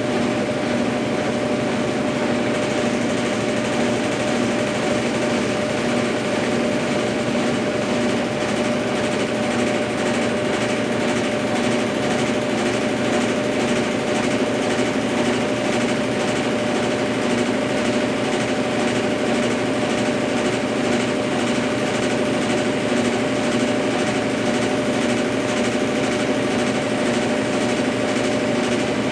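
Consul Facilite 10 kg (CWC10) washing machine running steadily in its rinse-and-spin stage: a continuous motor whine with a constant pitch and a faint regular pulse under it.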